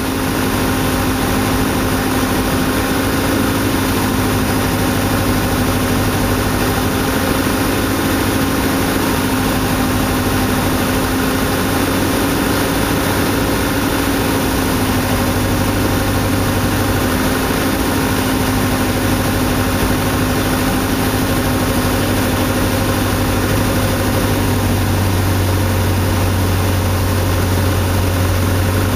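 Cessna 152's four-cylinder Lycoming O-235 engine and propeller droning steadily, heard inside the cockpit during a landing approach. The pitch wavers slightly now and then.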